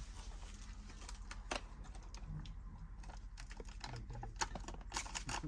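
Scattered light clicks and taps at an irregular pace, with a couple of soft low knocks, over a steady low hum.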